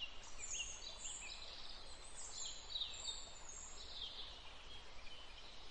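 Faint birdsong: several birds chirping in quick, high-pitched sweeping notes, over a steady low background hiss.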